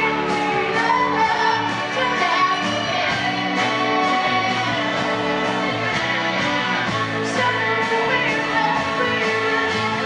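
Live band playing a song: a woman sings lead over electric guitar, bass guitar and drums.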